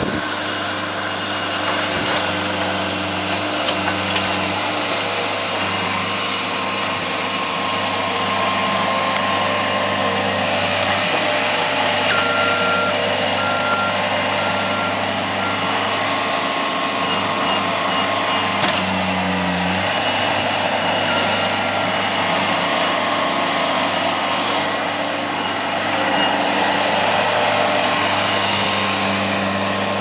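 Skid-steer loader's diesel engine running hard while the machine is manoeuvred, its pitch shifting a few times. About twelve seconds in its backup alarm beeps several times, roughly once a second.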